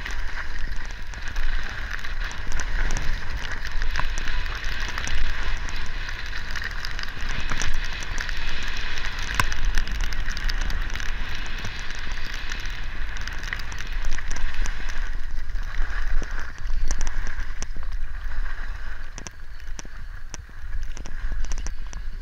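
Skis or snowboard edges hissing and scraping over packed, groomed snow during a fast downhill run, with wind rumbling on the moving camera's microphone. The scraping eases off and turns patchier in the last several seconds as the run slows.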